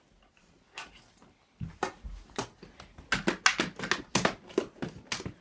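Rapid, irregular slaps and knocks of a children's play fight, starting about a second and a half in and growing denser and louder.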